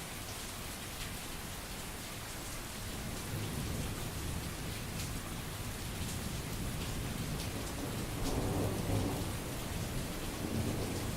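Steady rain with scattered drop ticks, under low rolling thunder that builds from about three seconds in and peaks with a louder rumble around eight seconds in.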